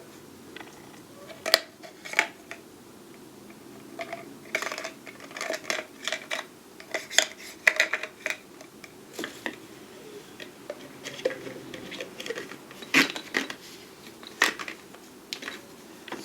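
Small metal lathe tools and parts being handled, with irregular clinks and clicks of metal on metal.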